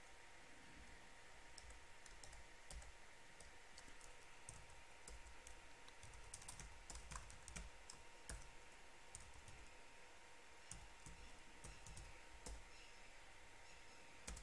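Faint typing on a computer keyboard: quick, irregular key clicks that begin about a second and a half in and go on until near the end.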